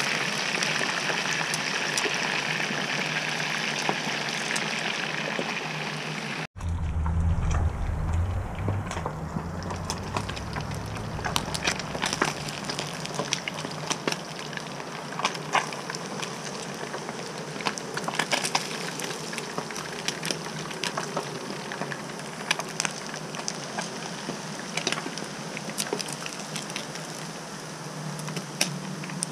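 Whole redear sunfish frying in a skillet of hot oil: a steady sizzle that breaks off about six seconds in, then resumes quieter with a low rumble for a few seconds and frequent sharp pops and crackles of the oil.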